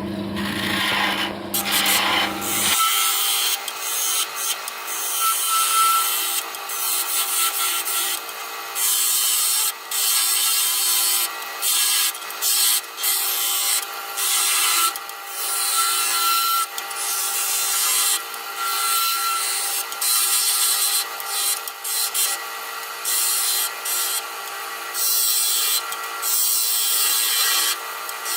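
Wood lathe running with a steady hum while a turning tool cuts the spinning wooden pipe blank. The cutting comes as repeated hissing, scraping passes broken by short pauses.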